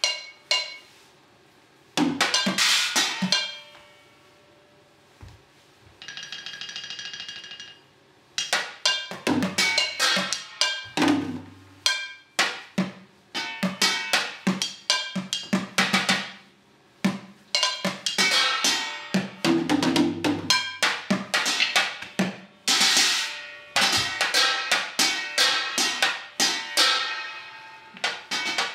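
Live stage percussion from tap shoes and drumsticks: sharp, quick strikes in rhythmic phrases. There are a few short groups in the first four seconds, then a held ringing tone from about six to eight seconds in, then a near-continuous run of quick strikes with brief gaps.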